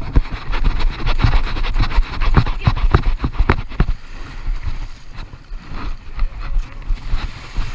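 Wind buffeting the microphone of a body-worn camera, with a constant low rumble and irregular knocks. Small waves are washing up onto the sand. The buffeting and knocking ease about four seconds in.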